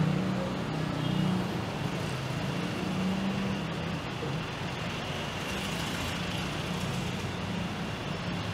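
Busy street traffic: motor vehicle engines running and passing close by, a steady low engine hum over road noise, loudest in the first few seconds.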